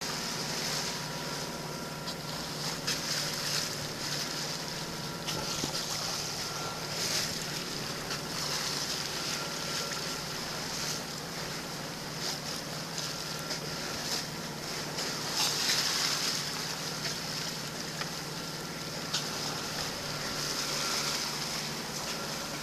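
A sailboat's bow wave rushing and splashing along the hull, in surges, with wind on the microphone and a steady low hum underneath.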